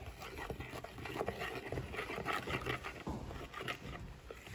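Metal spoon stirring chilli flakes into a dark chilli sauce in a bowl: quick, irregular scraping and clinking against the bowl with wet sloshing.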